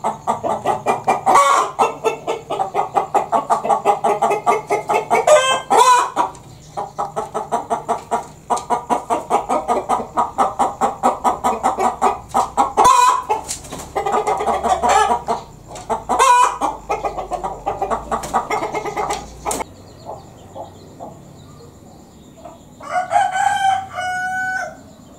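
A hen cackling: a fast run of clucks broken by four loud drawn-out squawks, the 'petok-petok' cackle typical of a hen that has just laid an egg. It stops about twenty seconds in, and near the end comes one short crowing call in two notes.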